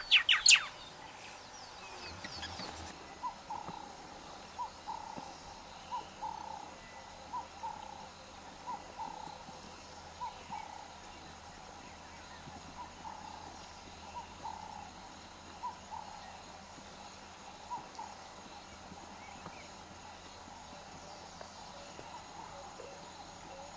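A bird calling: short hooting notes repeated about every second to second and a half, dying away after about eighteen seconds. A few sharp clicks sound at the very start.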